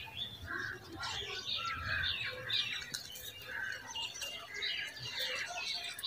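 Small birds chirping and twittering in a busy, overlapping chorus of short high calls.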